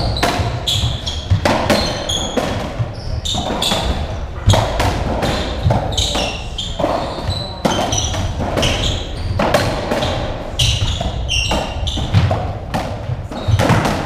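A racketball rally on a squash court: the ball struck by rackets and smacking off the walls and floor several times a second, mixed with short high squeaks of court shoes on the wooden floor.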